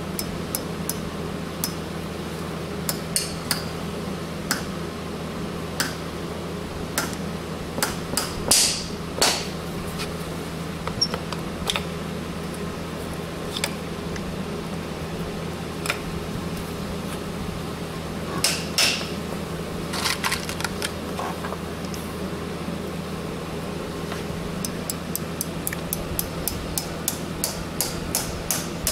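Farrier's driving hammer tapping horseshoe nails through a steel shoe into the hoof wall: sharp metal-on-metal taps, irregular and in small groups, with a quick run of light taps near the end.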